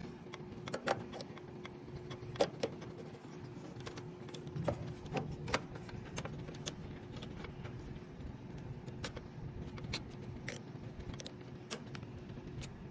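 Irregular clicks and light rattles of a run capacitor and zip tie being handled and fitted into a plastic capacitor holder, over a steady low hum.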